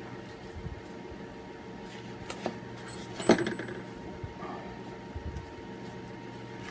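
Faint handling noises as sheets of alphabet letter stickers are shuffled on a stone countertop, with a few light clicks and one sharper tap about halfway through, over a steady background hum.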